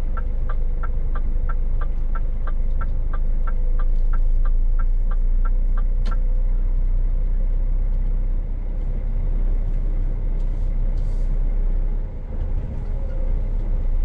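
Scania S500 truck engine running at low speed while manoeuvring. A turn-signal indicator ticks about three times a second and stops with a click about six seconds in. A short air hiss comes near eleven seconds.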